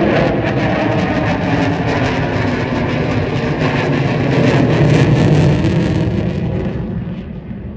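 Jet aircraft flying past, a loud roar that swells to its peak about five seconds in and then fades away near the end.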